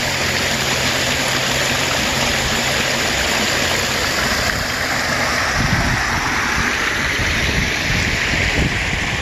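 Shallow storm runoff rushing and splashing over rocks and concrete in a steady, loud rush of water.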